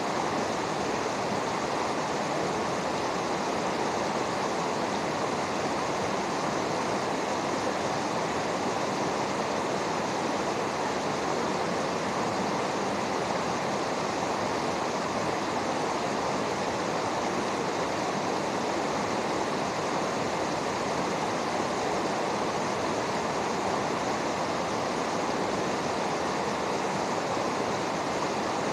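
Fast mountain river rushing over rocks: a steady, even roar of flowing water that does not change.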